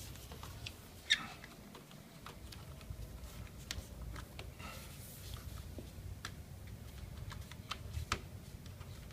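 Scattered small clicks and taps of hand handling over a low steady hum, with a sharper click about a second in and another near the end.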